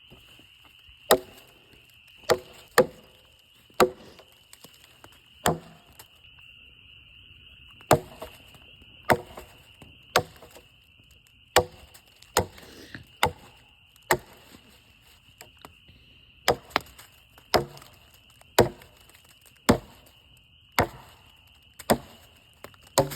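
Hatchet chopping into a tough piece of wood: about nineteen sharp blows, mostly about a second apart, with a short pause about six seconds in.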